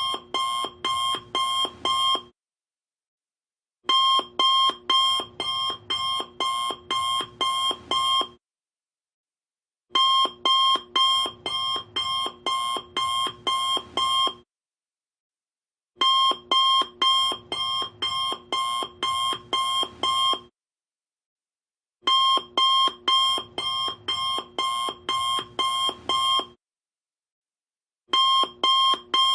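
Alarm clock beeping: rapid beeps, about two and a half a second, in bursts of about four seconds, each burst followed by a pause of about a second and a half, repeating over and over.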